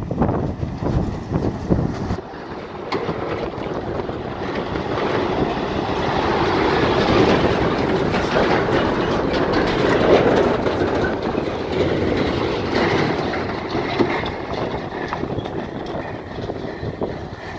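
Heavy goods trucks passing close by on a rough road. Engine and tyre noise swells as a container trailer goes past, loudest about ten seconds in, then fades as it moves away, with scattered short knocks through it.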